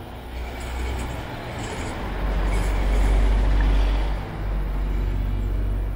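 Street traffic: a vehicle passing close by, a low rumble with road noise that swells to its loudest about three seconds in, then eases off.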